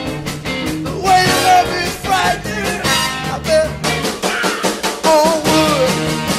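Pop-rock song playing: a band with drum kit and guitar under a sliding lead vocal melody.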